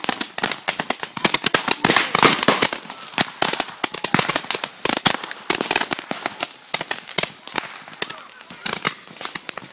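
Fireworks going off in a rapid, irregular string of sharp cracks and pops. The cracks come thickest and loudest in the first few seconds and thin out near the end.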